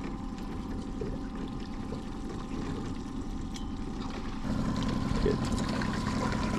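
Boat motor running steadily, with water noise around it; the sound steps up louder about four and a half seconds in.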